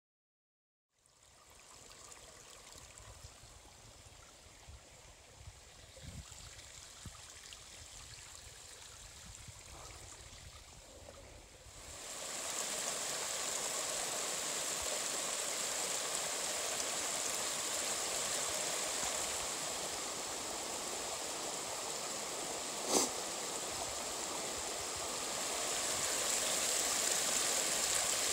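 Small rocky mountain creek running, a steady rush of water that comes in loudly about twelve seconds in after a quieter stretch. A single sharp click sounds about two-thirds of the way through.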